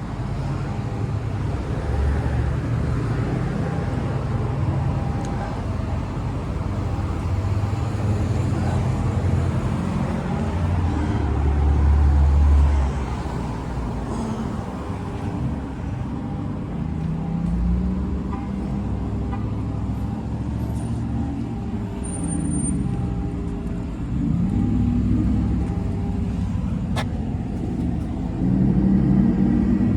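Road vehicle engines and traffic noise: a steady low rumble, with engine pitch rising and falling as vehicles accelerate or pass. It swells to a louder low rumble about twelve seconds in, and there is a single sharp click near the end.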